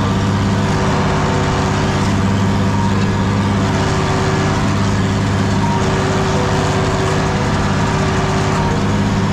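Zetor tractor's diesel engine running steadily under load while pulling a disc harrow across a field, with an even, unchanging engine speed. The muffler has a hole in it, so the exhaust note is rougher and louder than normal.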